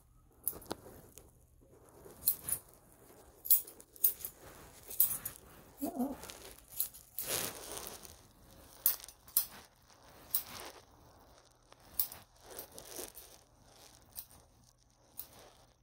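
Grooming scissors snipping a Shih Tzu's hair around the head and face: short, sharp metallic snips at an irregular pace, about one or two a second.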